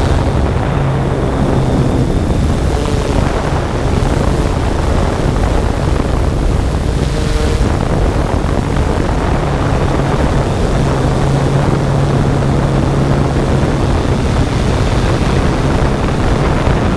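Yuneec Typhoon G quadcopter in flight: its propellers give a steady low hum inside a constant rush of wind noise on the onboard camera's microphone.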